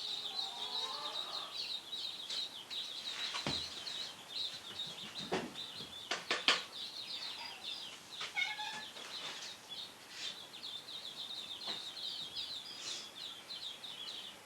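A brood of runner and golden Pekin ducklings peeping continuously in a dense, high-pitched chorus. A few sharp knocks and clatters come in the middle.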